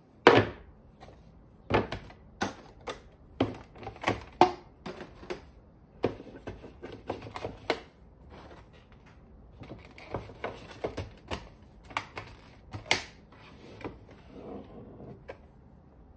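Clear plastic storage trays and plastic yogurt cups being handled and set down on a shelf: a string of irregular light clacks and knocks, the sharpest just after the start and again about 13 seconds in.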